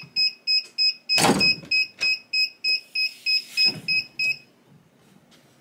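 Heat press timer alarm beeping rapidly, about three short high beeps a second, signalling that the four-minute press cycle is done. About a second in the clamshell heat press is unlocked and swung open with a loud rush of noise, and the beeping stops about a second before the end.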